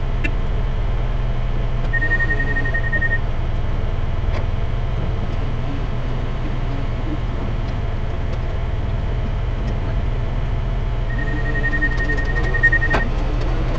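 Steady low rumble of heavy diesel machinery running, from the wheel loader manoeuvring beside the truck. A high steady beeping tone sounds briefly about two seconds in and again for a couple of seconds near the end, and there is a single sharp clank near the end.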